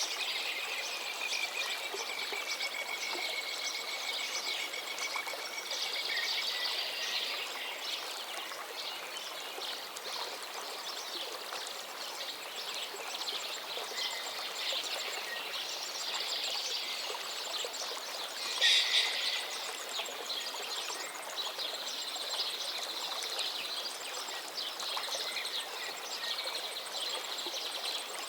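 River water flowing steadily, with small birds chirping and calling over it throughout. Near the start a long, even trill runs for about five seconds, and about two-thirds of the way in comes one short, louder burst of calls.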